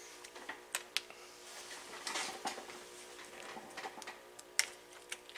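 Scattered light clicks and a brief rustle of hands handling multimeter test leads and jumper wires on a workbench, the sharpest click about four and a half seconds in, over a faint steady hum.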